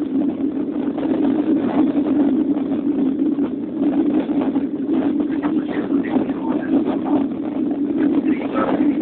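Steady drone of a jet airliner in flight heard from inside the cabin: engine and airflow noise, a constant low hum under a rushing hiss.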